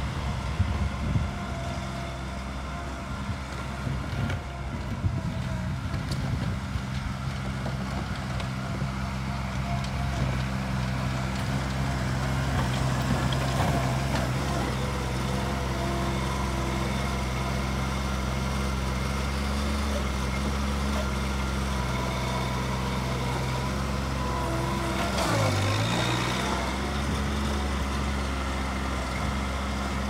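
Bobcat 463 skid-steer loader's diesel engine running steadily as the machine drives and works its snow bucket. About 25 seconds in, the engine speed dips sharply and picks back up.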